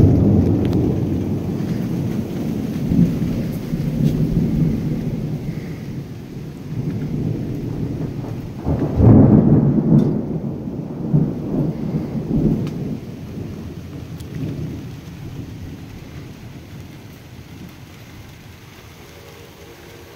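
Thunder rumbling over steady rain. A sudden loud peal at the start rolls on for several seconds, a second loud peal comes about nine seconds in, and the rumble then fades away.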